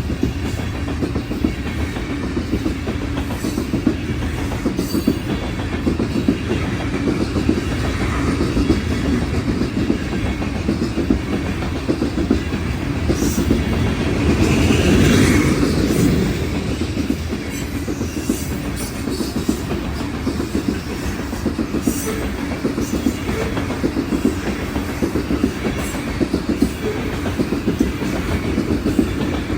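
Freight train cars rolling past: a steady rumble of steel wheels on rail with rapid clicking over the rail joints, growing louder for a couple of seconds around the middle.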